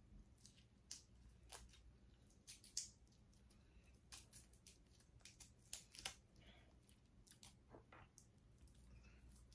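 Faint, irregular clicks and crackles of seafood boil being eaten by hand, crab and lobster shell pieces being picked apart, with sharper snaps about three and six seconds in.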